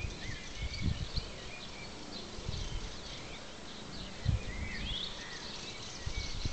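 Small birds chirping and twittering in short high calls throughout. A few irregular low thumps, like wind buffeting the microphone, are the loudest sounds, one about four seconds in.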